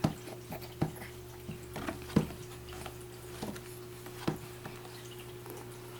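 A baby's plastic feeding spoon tapping and knocking on a high chair tray and bowl: a handful of short, irregular knocks, the loudest a little past two seconds in, over a steady low hum.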